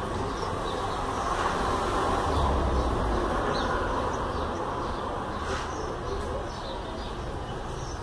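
Steady background hiss with faint, scattered bird chirps and a low rumble that swells briefly a couple of seconds in.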